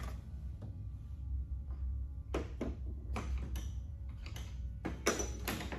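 Series of short knocks and clatters, several in quick succession midway and a louder cluster near the end, from tools being handled while searching for the right size socket, over a steady low hum.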